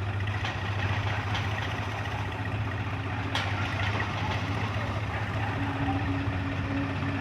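New Holland 5510 tractor's diesel engine running steadily, a low even drone, with a fainter higher hum coming in partway through and a single short click a little after three seconds in.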